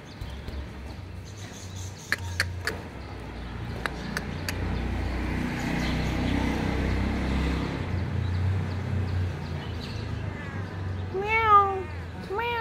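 A cat meowing twice near the end, each a short call that rises and then falls in pitch. Before that there are a few sharp clicks and a low rumble that swells and fades.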